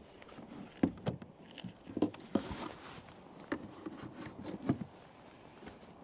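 Irregular knocks and taps with light rustling, from a trout and gear being handled on a plastic kayak deck; the sharpest knocks come about a second in, at two seconds and near five seconds.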